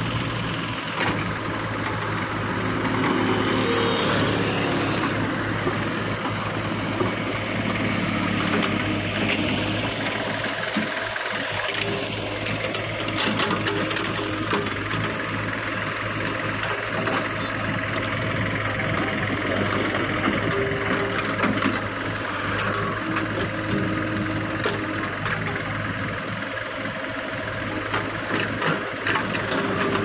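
JCB 3DX backhoe loader's diesel engine running steadily while the backhoe arm digs, with scattered short knocks as the bucket works the soil.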